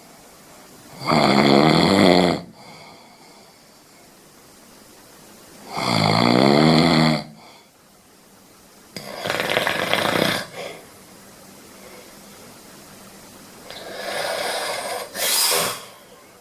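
Scottish Fold cat snoring in its sleep: four snores, about one every four seconds.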